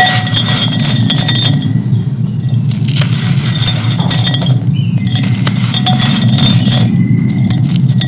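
Handfuls of dry, gritty clay chunks crushed by hand, the crumbs and dust pattering and clinking into a clay pot in three pours of about two seconds each. A steady low hum runs underneath.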